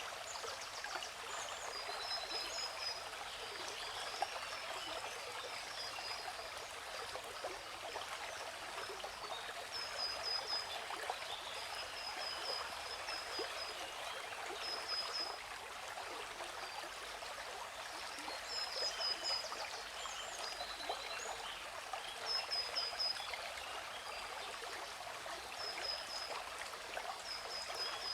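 Steady rush of waterfall water, with small birds chirping over it in short runs of quick high chirps that recur many times.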